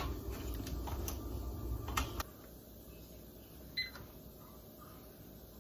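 Kitchen handling noise: knocks and clicks over a low rumble that stop abruptly about two seconds in. Then a faint steady hiss, with one short clink near the middle.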